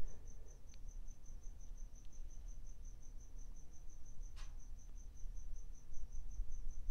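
A cricket chirping steadily: a high pulsing note about six times a second, over a faint low hum. A faint tick about four seconds in.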